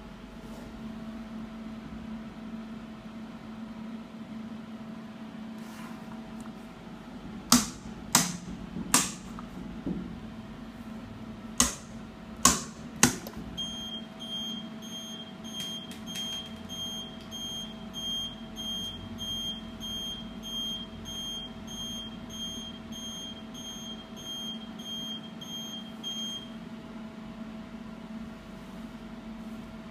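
Indotherm 500 induction heater humming steadily while about seven sharp clicks sound from its controls over a few seconds, then its beeper sounds a long run of short, evenly spaced high beeps for about thirteen seconds as the timer reads 00.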